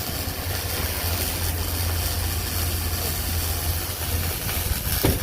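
Engine idling steadily with a low hum, and one brief knock near the end.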